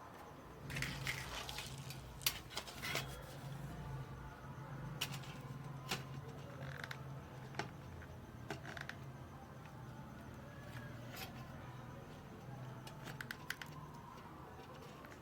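Scattered sharp clicks and light handling noises of small parts and hand tools being worked by hand, with the sharpest click about two seconds in, over a steady low hum.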